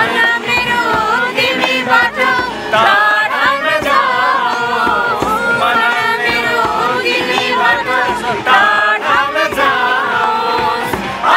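A group of men and women singing a Nepali song together, with a strummed acoustic guitar and a hand drum keeping a steady beat.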